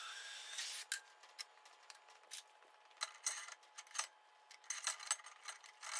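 Oxy-gas cutting torch hissing, stopping just under a second in. Then scattered light metallic clicks and taps of tools and metal being handled on a steel workbench.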